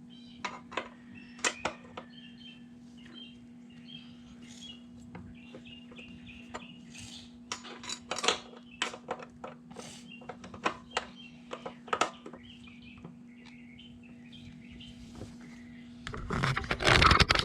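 Irregular sharp clicks and clinks of wrench work on a dirt bike's rear axle nut, with small birds chirping in the background over a steady low hum. A louder scuffing noise comes near the end.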